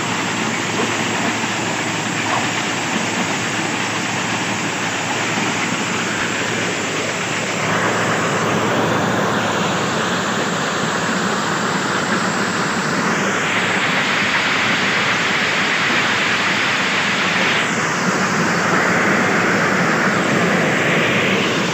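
Railway ballast regulating machine at work: its plough scrapes and pushes ballast stones along the track, a steady rush of gravel and machine noise that grows louder about eight seconds in.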